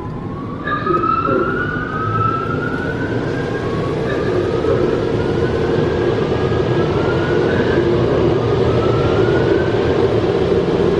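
Car wash dryer blowers running, heard from inside the car: a loud rush of air with several rising whines one after another as the blower motors spin up, building in loudness.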